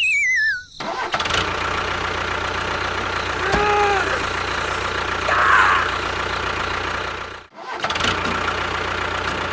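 An engine starting and then running steadily. It is cut off abruptly about seven and a half seconds in and starts again. A falling, warbling whistle sound effect opens the sound.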